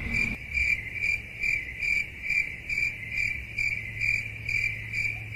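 Cricket chirping sound effect: a single high chirp repeating about two to three times a second over a faint low hum. It is the comic cue for an awkward silence.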